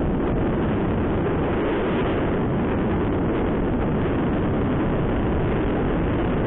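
Steady wind rush on the microphone and road noise from a Honda SP125 motorcycle riding at about 55 to 70 km/h, gaining speed.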